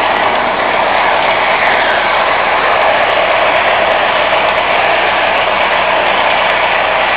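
O-gauge model train running along the track: a steady whirring rumble with scattered faint clicks.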